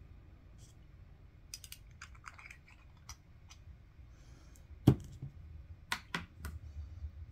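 Scattered light clicks and taps of art supplies being handled on a tabletop, with one sharp knock about five seconds in and three quick clicks a second later.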